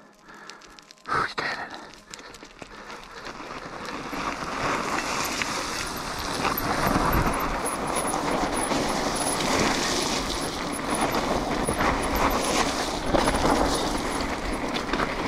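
Mountain bike tyres sliding down a steep chute of loose scree, the gravel and rocks crunching and rattling under the wheels and the bike clattering; the noise builds over the first few seconds and then holds steady and loud. A brief sharp sound comes about a second in.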